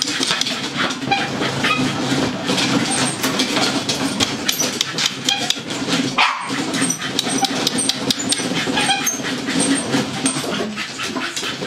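Dog running on a Firepaw dog treadmill: a steady mechanical rumble from the running treadmill, with a rapid patter of paw strikes on it. The rumble drops out briefly about six seconds in.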